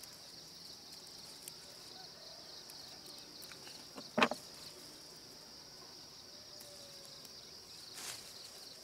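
Steady high-pitched chorus of insects, with a short sharp sound about four seconds in and a fainter one near the end.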